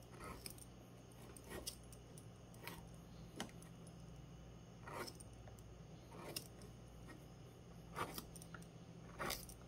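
Palm gouge cutting into a small log, a string of short faint scraping cuts every second or so, over a faint steady low hum.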